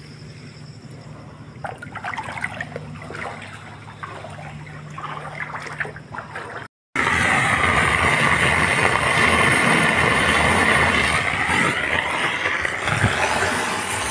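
Rainwater running into a terrace floor drain: light trickling and splashing at first, then, after a brief break about halfway, a louder, steady rush of water going down the drain.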